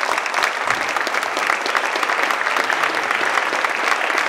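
Audience applauding: many people clapping steadily and loudly in a large hall.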